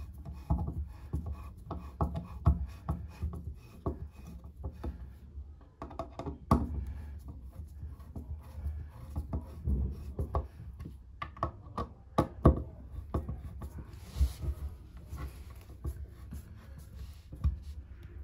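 Long hand screwdriver turning the screws that clamp a shower tray's waste fitting, tightened a little at a time. It makes irregular small clicks and creaks, with a few sharper knocks partway through.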